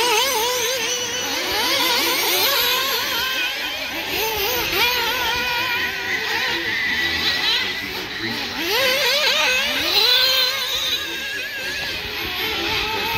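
Several nitro RC buggy engines running at high pitch, revving up and down as they race. Twice, about two-thirds of the way through, one climbs sharply in pitch as it accelerates.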